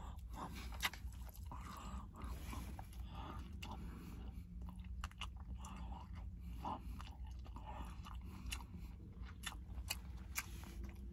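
A person chewing and biting food close to the microphone, with small irregular crunches and mouth clicks.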